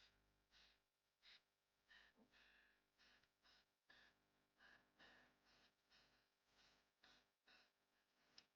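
Near silence, with faint knife strokes mincing garlic and coriander root on a cutting board, about two a second.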